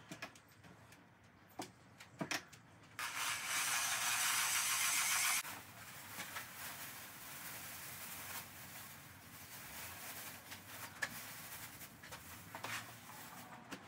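A few knocks and clicks, then a loud, steady rushing noise for about two and a half seconds starting about three seconds in. After it come quieter rustling and handling sounds as a plastic bag of chopped strand fiberglass is emptied into a bucket of resin.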